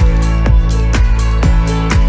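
Electronic dance music with a steady beat and heavy bass.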